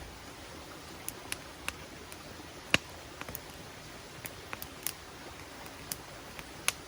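Wood campfire crackling, with sharp irregular pops (one loud snap a little under three seconds in and another near the end), over the steady rushing of a river.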